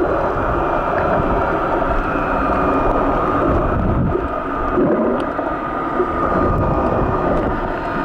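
Underwater recording: a loud, steady, muffled rumble and swish of water moving against the camera, with a faint steady high whine running through it.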